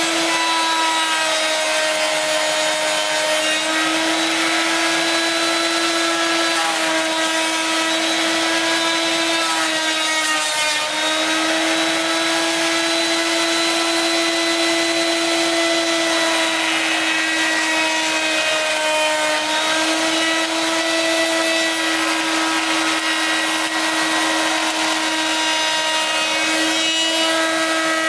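Electric router mounted upside down in a stand, running with a steady high whine while a wooden panelling strip is fed past the cutter along its fence. Its pitch sags briefly a couple of times as the bit takes wood.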